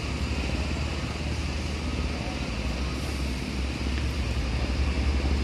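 Low, steady rumble of a large ro-ro ferry's engines as it manoeuvres slowly alongside the quay to berth.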